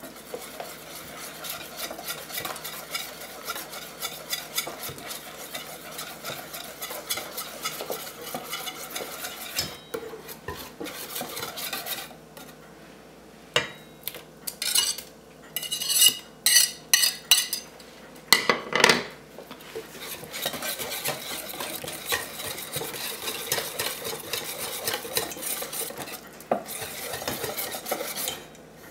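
Wire whisk beating in a stainless steel bowl, a rapid, steady scraping and clinking of metal on metal as butter is whisked into warm lemon curd. About halfway through the whisking breaks off for several seconds, with a run of louder, sharp clinks and taps, then the steady whisking resumes.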